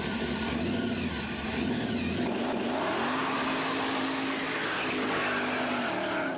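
Car engine sound effect: an engine running, rising in pitch a little over two seconds in and then holding a steady higher note.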